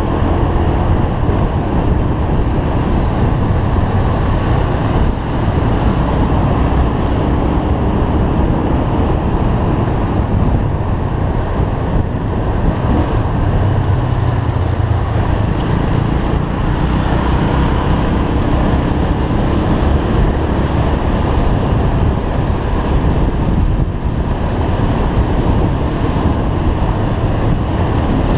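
Steady wind rush on the microphone of a moving motorcycle, with the motorcycle's engine and road noise running underneath and its pitch drifting gently with speed.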